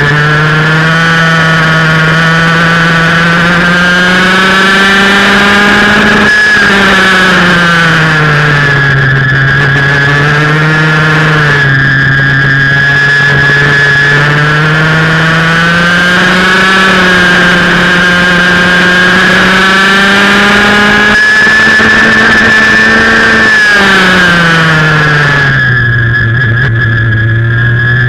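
Close-up onboard sound of a TAG go-kart's 125cc two-stroke engine at high revs. Its pitch climbs slowly on the straights and drops sharply several times as the kart slows for corners.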